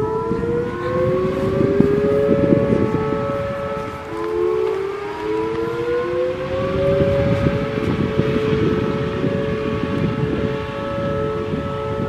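Federal Signal 2T22 two-tone mechanical warning siren sounding a steady alert: it winds up to a two-note chord in the first second or so and holds it. About four seconds in the pitch and loudness dip and climb back, with wind buffeting the microphone underneath.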